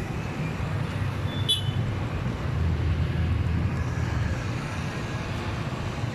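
Steady low rumble of road traffic, with one short high-pitched beep about a second and a half in.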